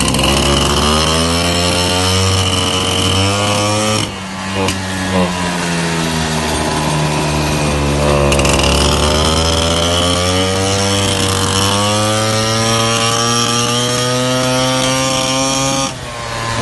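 Peugeot 103 moped's two-stroke single-cylinder engine running hard under way, with a buzzing note. The pitch eases off about four seconds in, climbs slowly over the following seconds, and drops near the end as the throttle is let off.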